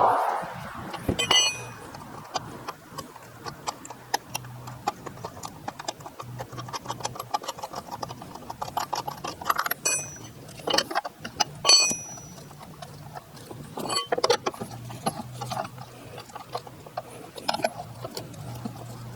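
Lug nuts being unscrewed and taken off a car wheel with a lug wrench: quick metal ticking and clicking, with a few sharp ringing clinks of metal on metal.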